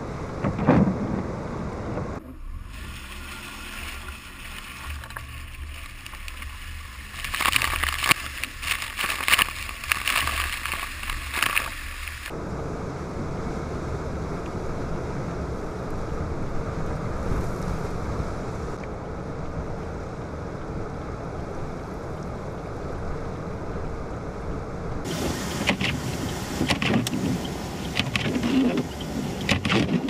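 Strong wind on the microphone, with cars driving slowly through a flooded street, tyres swishing through the water. The sound changes abruptly a few times, with the busiest stretches about a third of the way in and near the end.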